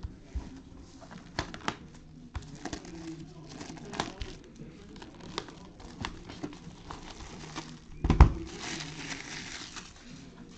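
Plastic wrap and cardboard crinkling, rustling and tearing as a sealed retail box of trading cards is opened by hand, with scattered small clicks and one louder knock about eight seconds in.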